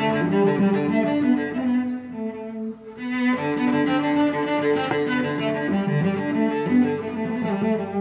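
Background instrumental music of bowed strings, led by a cello, in long held notes. The phrase thins out briefly between about two and three seconds in.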